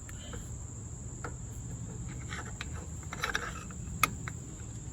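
Light metallic clicks and scraping from a brake piston tool being turned against a rear caliper piston, with one sharp click about four seconds in. Under it runs a steady high trill of crickets.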